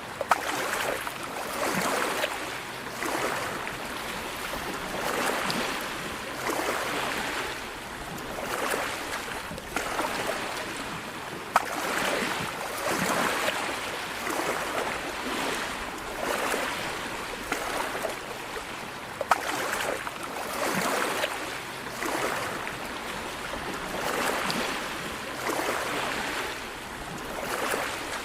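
Sea waves washing in, a swell of surging water every second or two, with a few sharp clicks.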